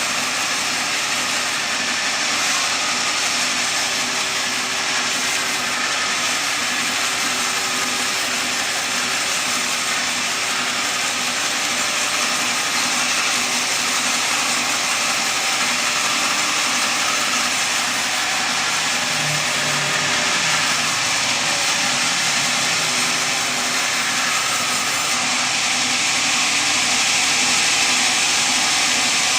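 Sawmill machinery running steadily: a loud, even mechanical noise with a faint low hum underneath, growing slightly louder near the end.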